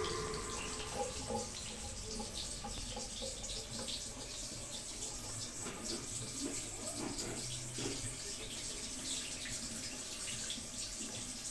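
Water running steadily from a newly fitted basin tap and splashing into the sink.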